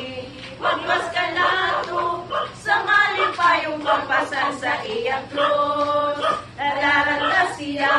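A group of women and girls singing together, with several long held notes.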